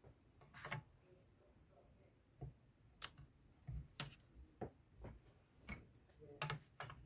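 Faint, scattered light clicks and taps, about a dozen at uneven intervals, from small craft pieces and tools being handled and set down on a desk.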